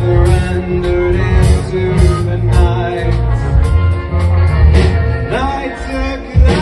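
A rock band playing a song, with a steady drum beat, heavy bass and sustained instrument lines, and a sung line coming in about five seconds in.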